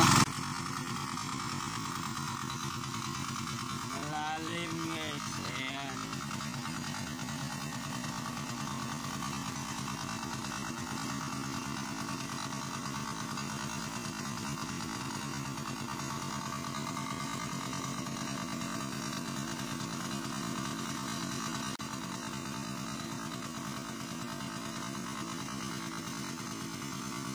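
Yanmar 12 hp engine of a turtle tiller (hand tractor) running steadily under load as the machine works through deep paddy mud.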